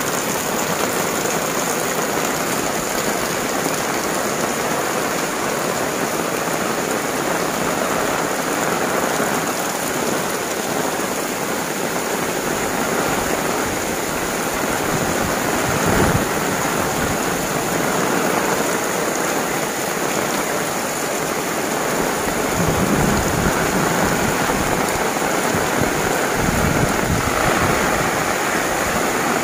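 Heavy downpour falling steadily, with one short thump about halfway through and a low rumble in the last several seconds.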